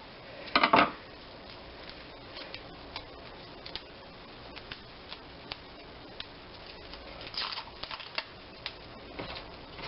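Garlic cloves being peeled by hand: dry papery skins rustling and crackling with scattered light clicks, and a short louder rustle under a second in.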